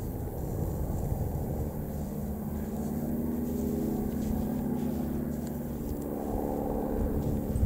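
Piston engines of vintage propeller-driven biplanes droning as they fly past. The engine note is steady and comes up clearest in the middle, over a continuous low rumble.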